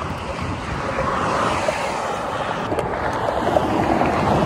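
Steady rush of wind across the microphone mixed with freeway traffic going by, over the rolling of skateboard wheels on the asphalt shoulder.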